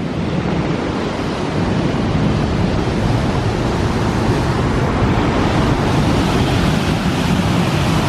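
Cross River waterfall rushing: a steady, even noise of falling whitewater, growing a little louder over the first couple of seconds.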